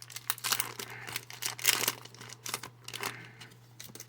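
Foil wrapper of a Yu-Gi-Oh booster pack crinkling and tearing as it is opened by hand, in quick irregular crackles.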